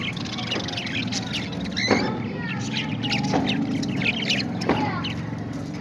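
Parrots chattering in short, high chirps and squeaks, with three sharper calls about a second and a half apart, over a steady low hum.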